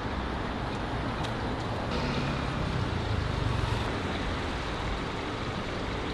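City street traffic: a steady rumble of passing cars that grows a little louder midway.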